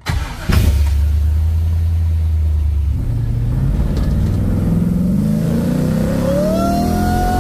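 Old car's engine cranked by the starter and catching within about half a second, then idling with a loud low rumble. From about three seconds in it revs up and the pitch climbs as the car pulls away.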